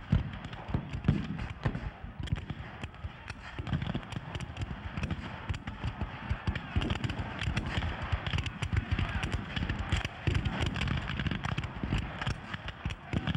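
Black-powder muskets firing in a dense, crackling run of scattered shots from a re-enacted battle line, over a din of many men's voices.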